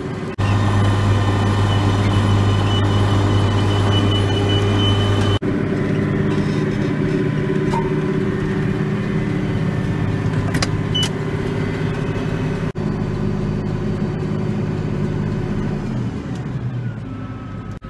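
Farm tractor engine running steadily, heard from inside the cab. The engine note shifts abruptly a few times.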